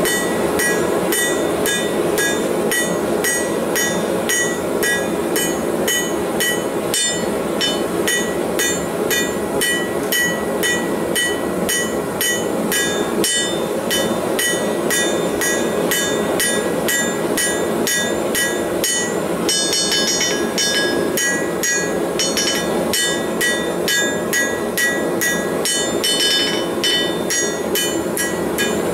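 Blacksmith's hammer forging a red-hot bar into a leaf on an anvil: a long run of quick, evenly paced strikes, each with a short bright ring from the anvil. Under the strikes runs a steady rushing noise.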